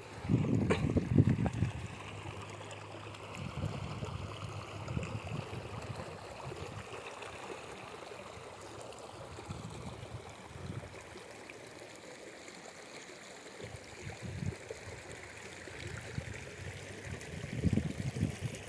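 Water running steadily from a concrete-lined irrigation channel where it spills into a flooded paddy field. Wind buffets the microphone at the start and again near the end.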